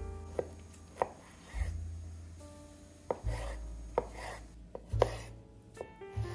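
Santoku knife dicing a tomato on a wooden cutting board: separate chops, each ending in a sharp knock of the blade on the board, coming irregularly about once a second.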